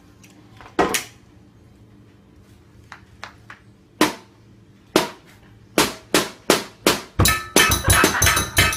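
Sharp clacking knocks: two about a second in, one at four seconds and one at five. From about six seconds they come as an evenly spaced run, speeding up to about three or four a second. Steady musical tones join the run near the end.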